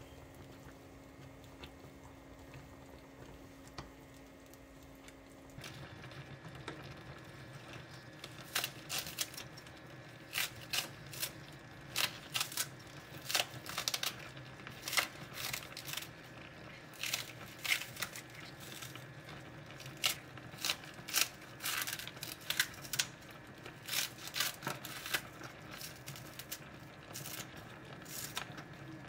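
Kitchen scissors snipping through stalks of large Korean green onion (daepa), a long series of short, crisp cuts at an irregular pace, often two or three close together, starting about eight seconds in.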